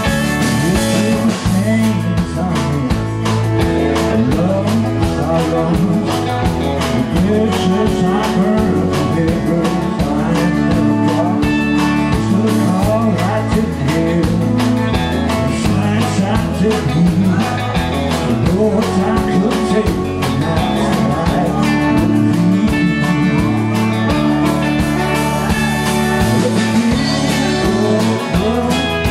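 A live band playing a song: electric bass, pedal steel guitar, acoustic guitar and drums, with a man and a woman singing.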